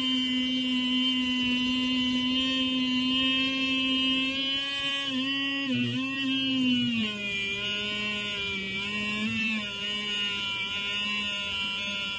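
Electric die grinder running at speed with a steady whine, its abrasive wheel grinding a helical slot into a rusty steel tube, with a constant high hiss. The pitch dips about six seconds in, then settles a little lower as the wheel bears harder on the work.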